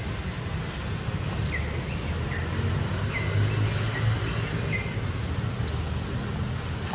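Outdoor forest ambience: a steady low rumble under a series of short, falling chirps that repeat about once a second.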